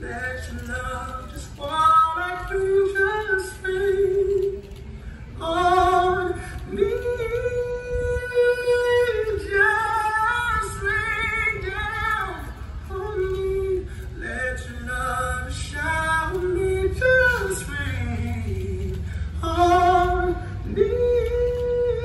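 A song with a woman singing long, held notes that glide between pitches, playing as the dancers' music.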